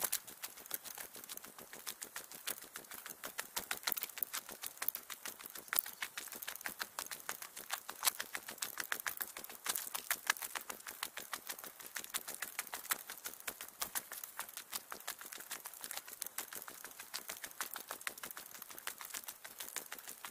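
Footsteps of a walker on a mountain hiking trail, sped up by fast-forwarding into a rapid, uneven run of sharp clicks.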